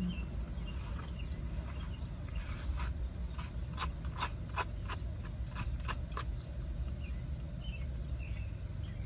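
A spoon scraping and clicking against a plastic food container, about nine quick strokes in the middle, over a steady low rumble.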